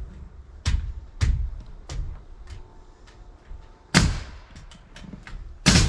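Nails being driven into a wooden rafter frame: a run of sharp knocks on timber, several a little over half a second apart, then two heavier strikes about four seconds in and near the end.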